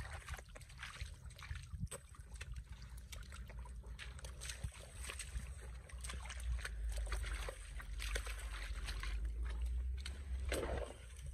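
Hands digging and scooping through wet mud and shallow water: irregular squelches, slaps and sloshes, over a low rumble that grows stronger about halfway through.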